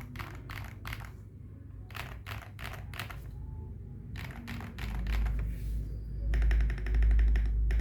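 Custom mechanical keyboard with KSA-profile keycaps being typed on: separate keystrokes for the first few seconds, then a fast run of typing from about six seconds in. A strong low rumble sits underneath from about five seconds in.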